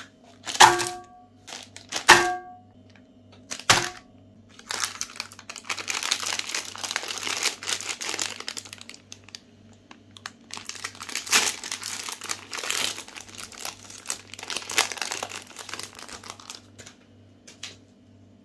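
Three sharp knocks on a clear glass plate in the first four seconds, each leaving a short ringing tone, as wrapped ice-cream bars are set down on it. Then a Magnum ice-cream bar's plastic wrapper crinkles and tears for about twelve seconds as it is opened.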